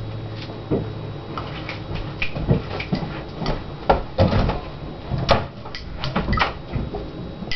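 Scattered light knocks and clatter of a cup being handled, at irregular intervals, several of them louder.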